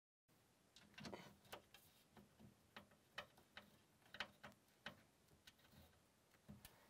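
Faint, irregular light ticks of a hand screwdriver turning a small screw into the metal bracket that holds a glass panel in the shower enclosure's aluminium frame. They come two or three times a second, starting about a second in.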